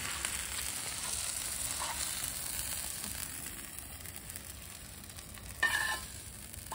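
Masala-coated fish frying in hot oil: a steady sizzle, with one brief louder noise near the end.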